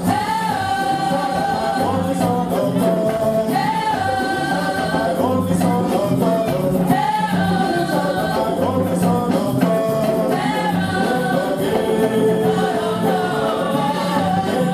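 Congregation or choir singing a gospel song over steady percussion, with maracas or shakers and tambourine keeping a rhythm.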